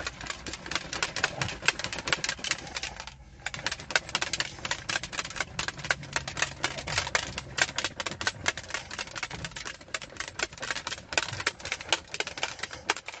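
Plastic protein shaker bottle shaken hard to mix clear whey powder into water: a fast, dense rattling with a brief pause about three seconds in.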